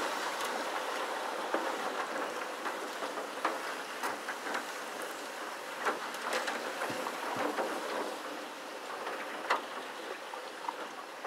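Reeds and weeds scraping and rustling against the hull of an aluminum Grumman canoe as it glides through them: a steady hiss with scattered sharp ticks.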